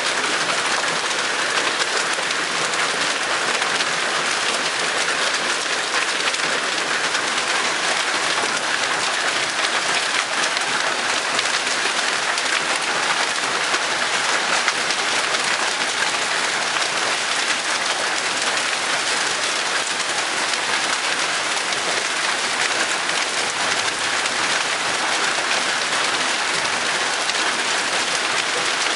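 Hailstorm: hail and rain falling steadily, a dense, even hiss of pellets striking the pavement, lawn and wooden porch deck.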